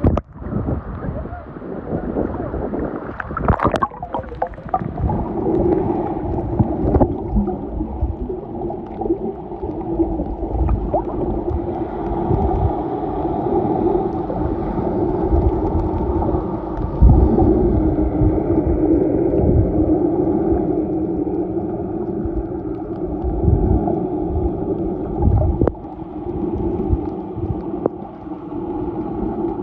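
Camera going underwater with a splash about four seconds in, then muffled underwater sound: a steady drone of a boat's machinery carried through the water, with gurgling and low bumps of water against the camera.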